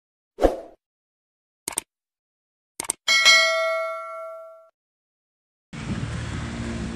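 Subscribe-animation sound effects: a short pop, a mouse click, then a quick double click, followed by a notification-bell ding that rings out and fades over about a second and a half. Steady outdoor background noise starts near the end.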